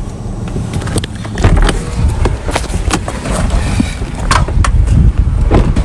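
Knocks, clunks and rustling as people climb out of a parked car through its open door, over low rumbling handling noise.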